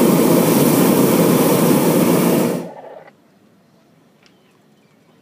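Hot air balloon's propane burner firing in one steady blast, cutting off about two and a half seconds in.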